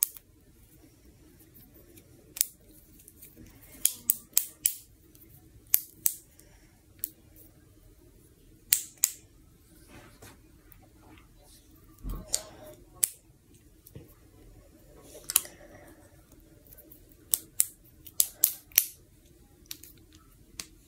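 Plastic snap-and-click fidget chain toy clicking sharply as its links are bent and snapped into new positions. The clicks come irregularly, singly and in quick runs of two to four.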